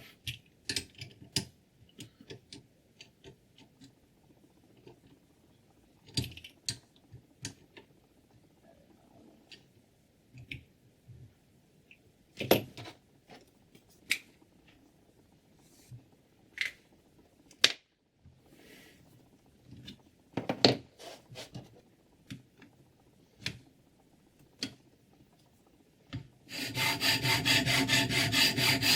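Scattered clicks and knocks of scissors and a guided sharpening system being handled and set up. Near the end, rapid, even back-and-forth scraping of a sharpening stone on a scissor blade starts.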